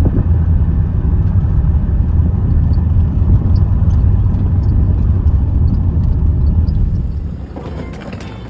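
Loud, steady low rumble of air from a ceiling fan buffeting a phone's microphone; it eases off about seven seconds in.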